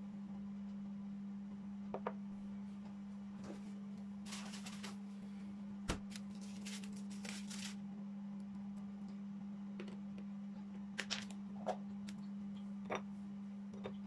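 A small glass bowl is set down on a marble tabletop with one sharp knock, after a few seconds of rustling. Later a few chocolates and nuts are dropped into the bowl with several short glassy clinks. A steady low hum runs underneath.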